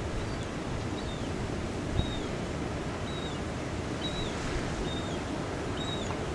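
Steady rushing wind noise outdoors. Over it a bird gives a short, thin, high call about once a second, each note dropping in pitch at its end.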